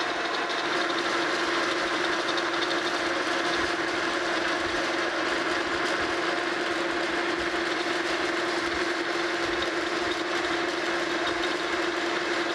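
Monarch Model K metal lathe running steadily, its tool taking a turning pass along the arbor shaft: a constant hum with the hiss of the cut over it.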